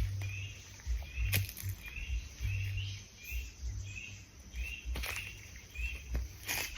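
A short chirping animal call repeating about twice a second, over irregular low thumps of footsteps and a few sharp clicks.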